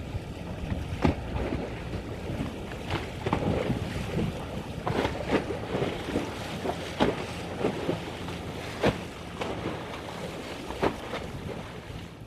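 Outdoor ambience: wind buffeting the microphone over a steady low rumble, with irregular short knocks throughout.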